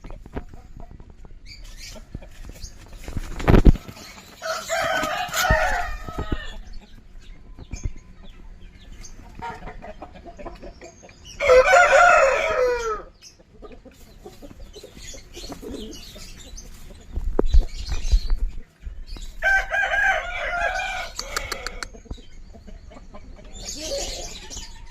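Rampur Aseel chickens calling: three loud rooster crows spaced several seconds apart, with softer clucking between them and a couple of dull thumps.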